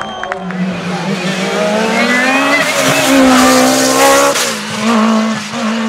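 Race car engine at full throttle, its pitch climbing for a couple of seconds, then dropping suddenly about four seconds in before it runs on at a lower, steady note.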